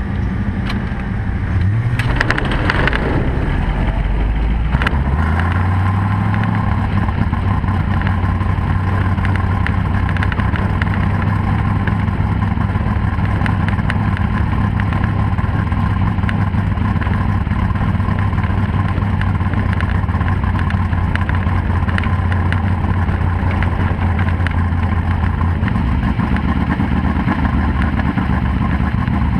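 Winged sprint car's V8 engine being warmed up, heard from on board the car, running at a low steady pace. It gives a short rev about two seconds in, and the note drops back near the end.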